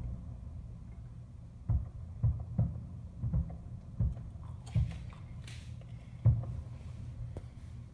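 Distant fireworks shells bursting: a string of dull, low booms at irregular intervals, about seven in all, the strongest a little after six seconds in.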